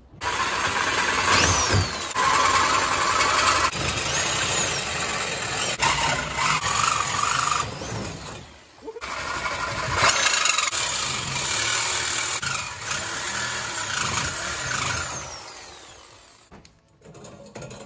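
Angle grinder with a cut-off wheel cutting through a steel exhaust header tube. It starts at full speed, pauses briefly about eight seconds in, cuts again, then winds down near the end.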